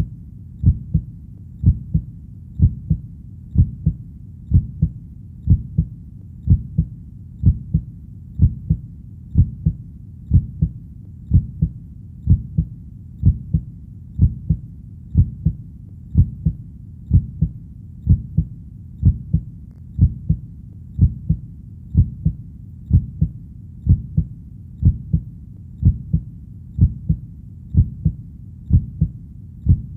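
A heartbeat in a steady lub-dub rhythm of low double thumps, about one beat a second.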